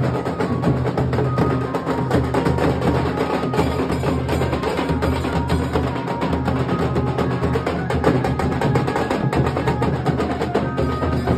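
Nashik dhol ensemble playing: large barrel dhols beaten with sticks together with a tasha's fast stick strokes, in a dense rhythm that never breaks.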